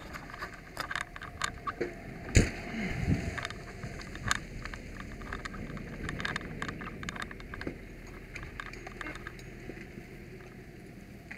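Irregular clicks, knocks and rattles of a firefighter's turnout gear and equipment as he moves about on foot, with one sharp knock about two seconds in.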